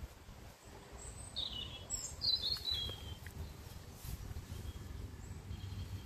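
A small bird chirping: a few short, high chirps between one and three seconds in, the later ones falling in pitch, over a low uneven rumble.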